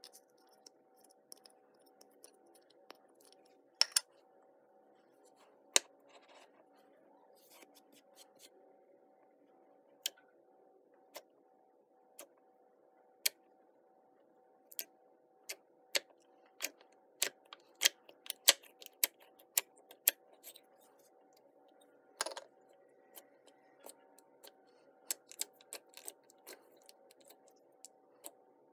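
Clear green slime being poked and pressed with fingertips, giving a run of sharp little clicks and pops. They are sparse at first and come thickest about halfway through. A faint steady hum lies underneath.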